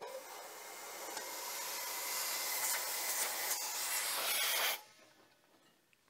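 R-410A refrigerant vapor hissing out of a deliberately loosened hose connection at the recovery tank, purging air from the hoses and recovery machine. The hiss slowly grows louder and cuts off suddenly about five seconds in.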